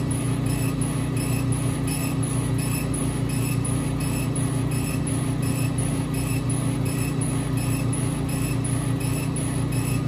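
Epilog Fusion M2 40 laser cutter raster-engraving wood: a steady low machine hum under a rhythmic whir that pulses about four times a second as the engraving head sweeps back and forth.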